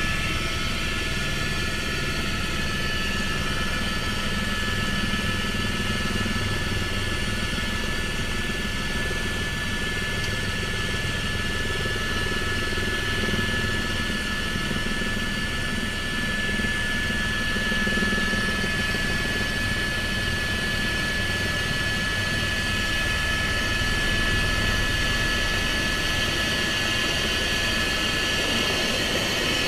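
Helicopter engine and rotor running steadily, heard from inside the cockpit, with a steady high whine over the drone.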